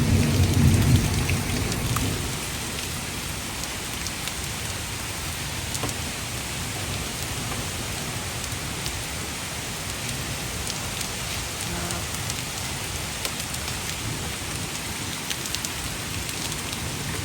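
Heavy rain pouring steadily, with a low rumble of thunder over the first two seconds.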